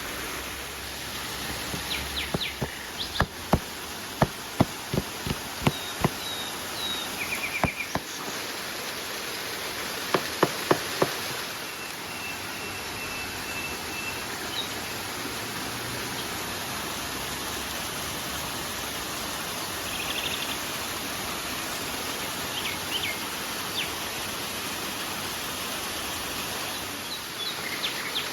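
Steady rushing of river water, with a run of sharp knocks in the first several seconds, four quick knocks near the middle, and a few short, high bird-like chirps.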